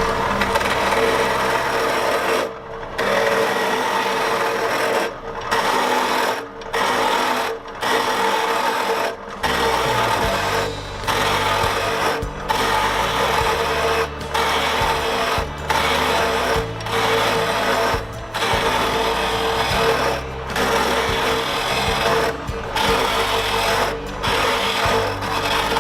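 Wood lathe spinning a square pine blank while a turning gouge roughs it round: a steady scraping, chattering cut over the constant hum of the lathe, broken by short gaps about every second or two as the gouge is lifted between passes.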